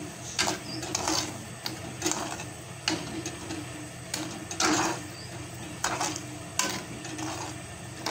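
A spoon scraping and knocking against a cooking pot as a thick date-and-tamarind chutney mixture is stirred, in uneven strokes about once or twice a second, over a low steady hum.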